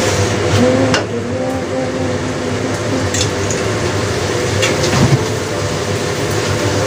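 Snow peas and baby squid frying in a stainless steel wok over a gas flame, a steady sizzling hiss, with a few knocks and scrapes of a wooden spatula against the pan about a second in and again around three and five seconds in.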